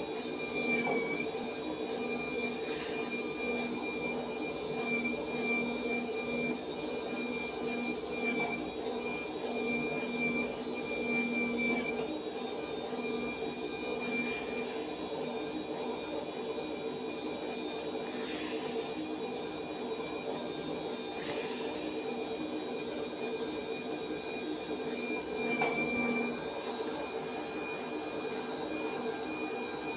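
Electric cotton-wick making machine running steadily, its motor giving a constant whine over a hum.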